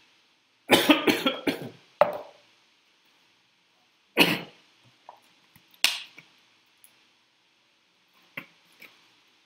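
A man coughing: a quick run of coughs about a second in, then single harsh coughs or throat-clears a couple of seconds apart. A few faint clicks near the end.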